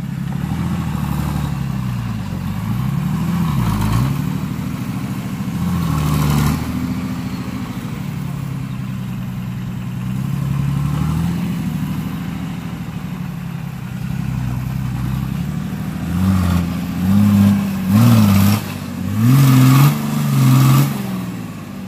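Nissan Patrol 4x4's engine revving up and down as it churns through deep mud, with a run of four or five harder, louder revs near the end.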